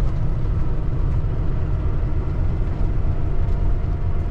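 Cummins ISX15 inline-six diesel in a Peterbilt 579 semi truck, running with a steady low rumble.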